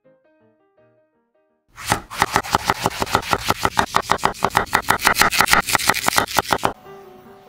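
Kitchen knife slicing a zucchini into rounds on a wooden cutting board, with quick, even chopping strokes several a second for about five seconds. Soft background music plays before the cutting starts and comes back faintly after it stops.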